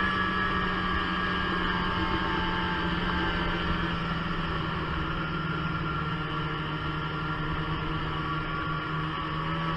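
Snowmobile engine running at a steady cruising speed, a continuous hum whose pitch sags slightly about halfway through and picks up again near the end.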